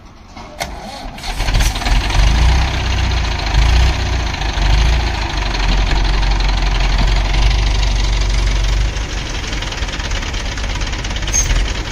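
Heavy diesel engine coming up to a loud, steady run about a second in, after a couple of short clicks, and holding there.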